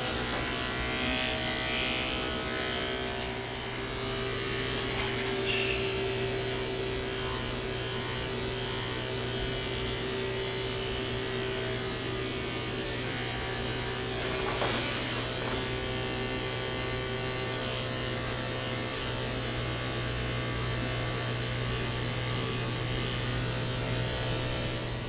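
Electric dog-grooming clippers running with a steady hum as they shave a toy poodle's coat.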